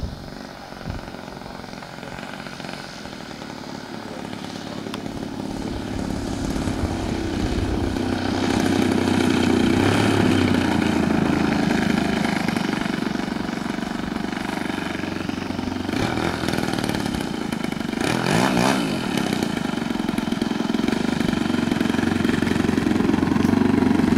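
Engine of a 30%-scale Extra radio-controlled aerobatic plane running at low throttle as it lands and taxis. It grows louder as the plane comes closer, with a brief rise and fall in pitch about three-quarters of the way through.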